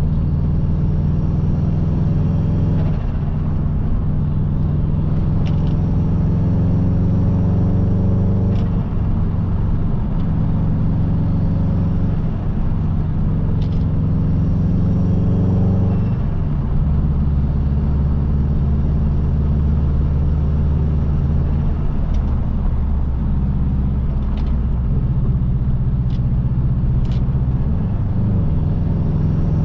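Subaru Impreza WRX's turbocharged EJ20 flat-four engine running while the car is driven, its note holding steady for a few seconds at a time and shifting pitch every few seconds as engine speed changes.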